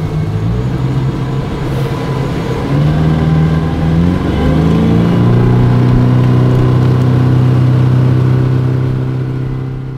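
Boat's outboard motor throttling up: the engine pitch rises about three to five seconds in, then holds steady at speed before easing off near the end.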